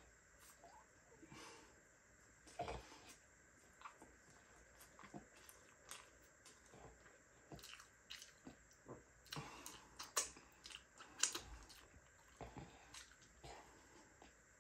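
Faint close-up chewing and biting as a man eats a McDonald's burger: scattered small mouth clicks and smacks, busiest about ten to eleven seconds in.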